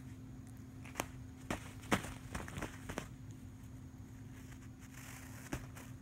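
Soft scuffs and scratches of a cat's paws and claws on a duvet, several short ones in the first half and one more near the end, over a steady low hum.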